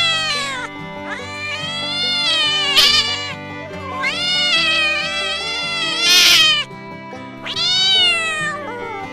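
A domestic cat meowing, three long drawn-out meows that rise and fall in pitch, over background music.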